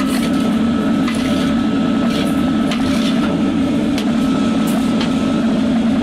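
A steady, loud, low mechanical drone from a running machine, with scattered light scrapes and taps over it.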